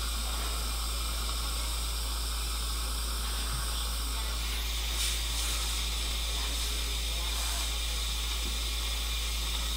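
Surgical suction tip hissing steadily as it draws air and fluid at the extraction and implant site, with a slight rise in the hiss about halfway through.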